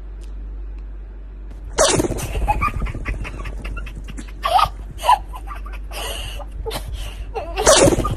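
A Pomeranian sneezing several times in short, sharp bursts, the loudest about two seconds in and near the end.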